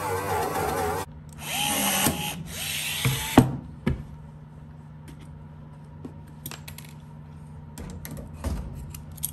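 Small corded rotary polishing tool whining at high speed on aluminium skin, cutting off suddenly about a second in. A short rush of noise and a few sharp metallic clicks follow, then scattered light clicks of clecos being pulled with cleco pliers near the end.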